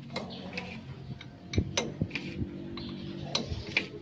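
Long steel bar tapping and scraping against the steel leaves of a dump truck's leaf spring, giving irregular sharp metallic clicks and clinks over a low steady hum.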